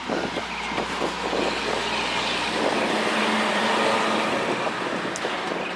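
A road vehicle driving past: its tyre and engine noise swells to a peak about halfway through and then fades.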